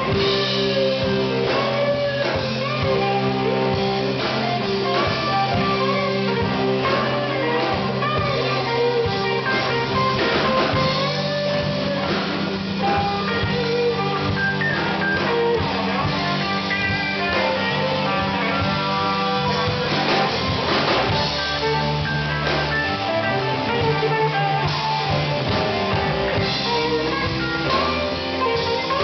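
Live blues band: a semi-hollow electric guitar takes a solo with bent notes over electric bass and drum kit.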